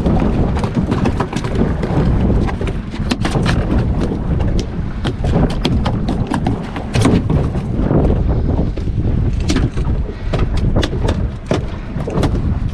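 Strong wind buffeting the microphone in a continuous low rumble, with frequent short sharp clicks and knocks over it.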